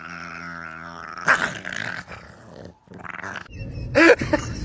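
A dog growling steadily, then loud barks about a second in and again near the end, with an abrupt break in between.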